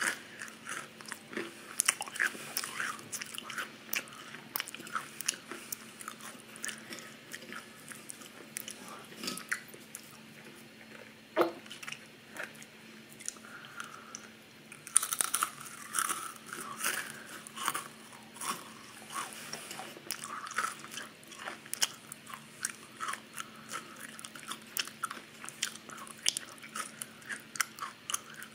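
Close-miked crunching and chewing of crackers with cream cheese: a steady run of crisp bites and crunches, with a denser burst of crunching about halfway through.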